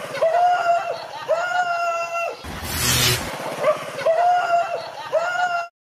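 A frightened dog crying out in a run of high, drawn-out yelps, each held about half a second to a second. A loud hissing burst with a low rumble under it comes near the middle.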